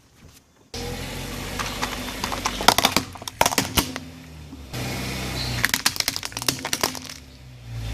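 Car tyres rolling over and crushing crunchy objects: two spells of rapid crackling and snapping over a steady low engine hum, starting abruptly about a second in.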